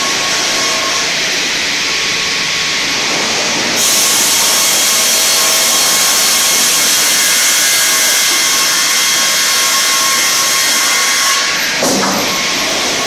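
StrojCAD D9 twin-blade circular sawmill running on spruce, the saw blades spinning with a steady hum and whine. About four seconds in the sound turns louder and hissier as the blades cut through the log, easing off near the end with a short clunk.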